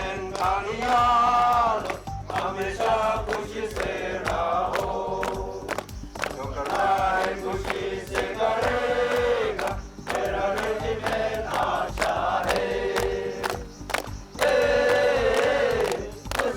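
A song with several voices singing together over a musical backing.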